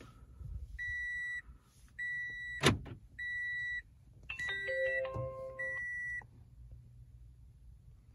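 Electronic beeps as the power comes on: five steady high-pitched beeps roughly a second apart, with a short falling run of lower tones about halfway through and a sharp click between the second and third beep.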